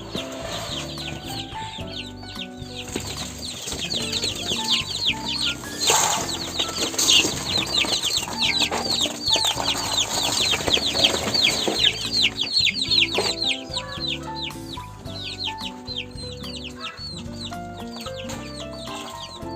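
A flock of baby chicks peeping: a dense, continuous stream of short, high cheeps that each fall in pitch, loudest through the middle, over background music.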